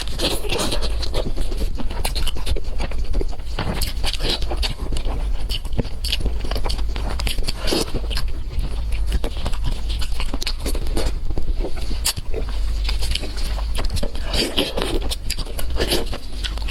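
A person chewing and eating close to the microphone: irregular wet mouth clicks and smacks over a steady low hum.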